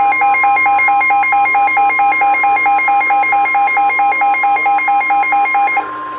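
NOAA Weather Radio alert alarm: the broadcast's steady 1050 Hz warning tone, with a weather radio's rapid alert beeping, about five beeps a second, laid over it. This signals that a warning is about to be read. The beeping stops near the end while the steady tone carries on.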